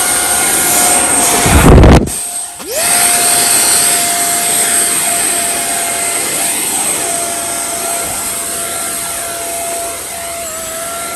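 The 50 mm electric ducted fan of an Eachine F-18 RC jet spinning up fast to a high, steady whine over a rushing hiss. Between one and two seconds in a loud rushing blast of noise, the loudest moment, drowns it and the whine drops out; about two and a half seconds in the fan spools back up from low pitch and holds a steady whine.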